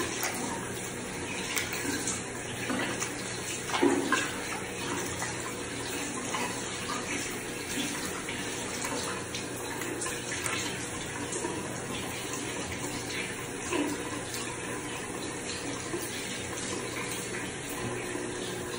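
Tap water running steadily into a bathroom sink while a face is rinsed of facial-wash lather, with splashes now and then as water is cupped onto the face.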